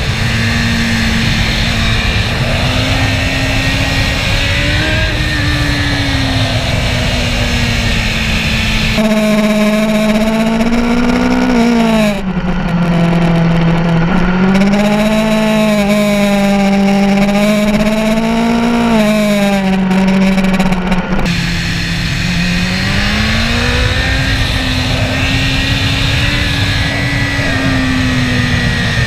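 Motorcycle engine running at fairly steady revs, its pitch rising and falling gently, with wind rushing over the microphone. For a stretch in the middle the wind noise drops away and the engine note comes through more clearly.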